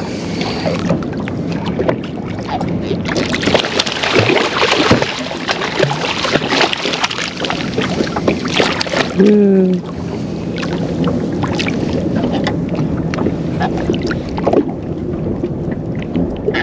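Wind buffeting the microphone and water washing against a small boat's hull, with scattered clicks and knocks throughout and a short pitched call about nine seconds in.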